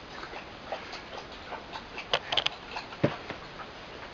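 A dog lapping water from its bowl: a quick run of small repeating ticks. A few sharper clicks come about two seconds in, and a single thump about a second later.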